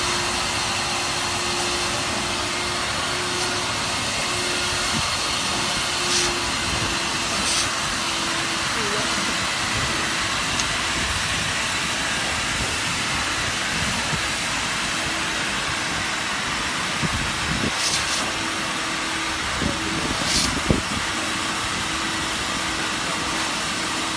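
HTG-33A industrial vacuum cleaner running steadily with a constant whooshing noise and a faint hum. Brief sharp bursts come four times, in two pairs about a dozen seconds apart.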